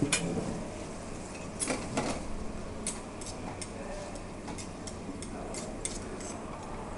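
Metal cutlery clinking and scraping against a stainless steel frying pan as salmon pieces are stirred in it: a couple of sharper knocks about two seconds in, then a run of light clicks.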